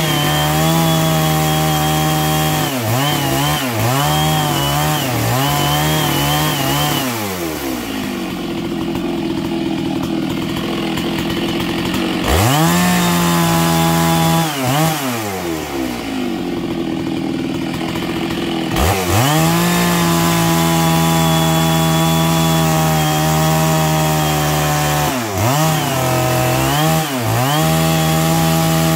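Stihl MS660 two-stroke chainsaw fitted with a ripping chain, cutting lengthwise along a larch log at full throttle. The engine pitch dips and recovers as the chain bites into the wood, and twice the saw drops back to idle for a few seconds, about a quarter and about half of the way through, before revving back up.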